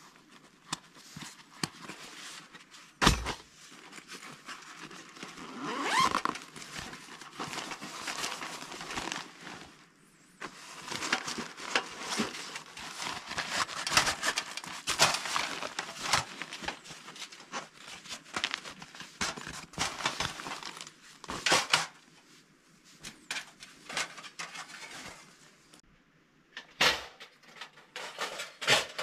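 Camping gear being unpacked by hand: a nylon bag's straps and buckles handled and plastic wrapping rustling, with sharp clicks and knocks now and then, the loudest about three seconds in.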